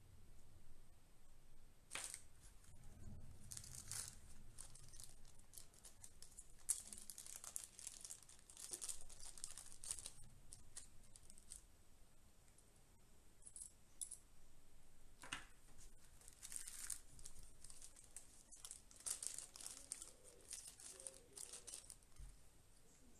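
Small clear plastic zip bags crinkling and rustling in the hands in irregular bursts, as small plastic action-camera mounts are handled. A few light clicks come in between.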